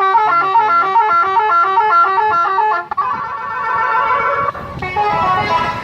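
Motorcycle's electronic telolet horn playing a tune: quick stepped notes, then a held chord about three seconds in, and more stepped notes near the end.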